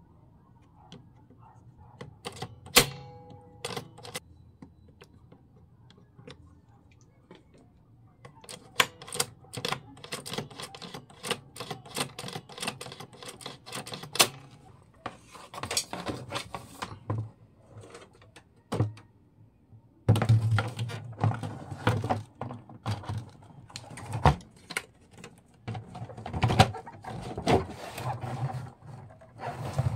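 Irregular runs of sharp clicks, taps and knocks from small plastic and metal parts of a turntable being handled and worked on, with a low hum under the clicking from about two-thirds of the way through.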